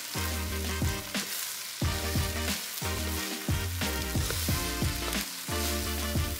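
Glutinous rice stir-frying in garlic oil in a frying pan: a steady sizzle as a wooden spatula stirs and turns the grains. Background music with plucked notes and a bass line plays over it.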